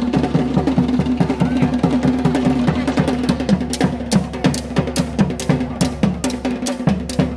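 Fast Polynesian drum music for a hip-shaking dance: many quick, sharp drum strokes in a steady driving rhythm over a deeper drum beat.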